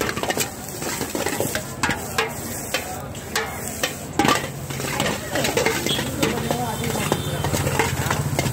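Food frying in a pan while a utensil stirs it, with scattered sharp knocks and scrapes of the utensil against the pan.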